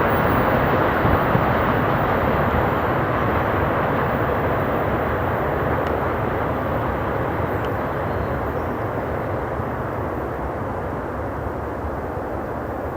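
Freight train running past on the track: a steady noise that slowly fades.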